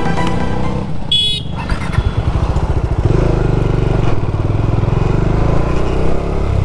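Bajaj Dominar 400's single-cylinder engine running as the motorcycle pulls away from a stop and rides slowly, getting louder and steadier about three seconds in. A brief high-pitched tone sounds about a second in.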